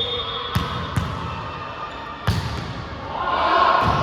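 Volleyball being struck and bouncing on a gym floor: three sharp smacks, the last about two seconds in, with a brief high sneaker squeak on the court early on and players' voices rising near the end.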